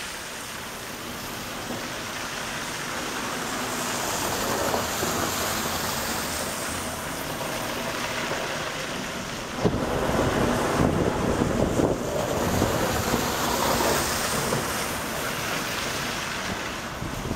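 Car traffic passing on a wet, slushy road, the tyres hissing on the slush. From about ten seconds in, wind buffets the microphone with a louder, rougher rumble.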